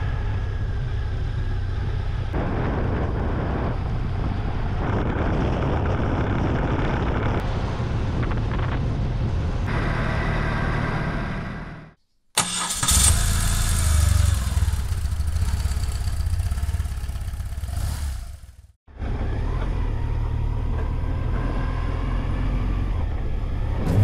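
BMW R1200C's boxer-twin engine running while riding. The sound cuts out briefly about halfway through and again a few seconds later, with a louder stretch of engine between the two cuts.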